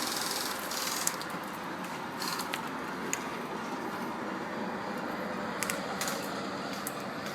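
Airsoft guns firing scattered shots: a few sharp clicks and pops at irregular moments over a steady background hiss.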